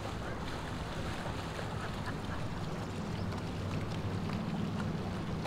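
Boat engine running steadily underway with a low, even hum, over wind and water noise.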